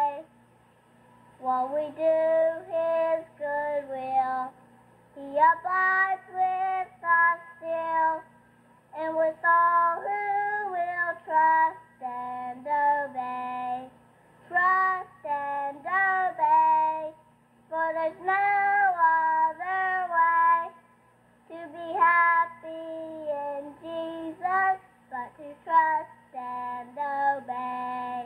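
A five-year-old boy singing solo, in short phrases with brief pauses for breath between them.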